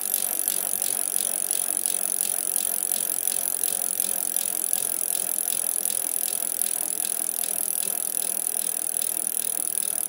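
Fast, even mechanical clicking over a steady high hiss, like a ratchet or a freewheel spinning.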